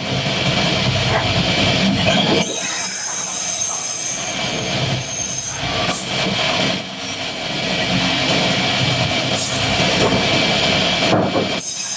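Wood-cutting machinery running loud and steady, with high-pitched squealing tones over dense mechanical noise. The sound changes abruptly several times.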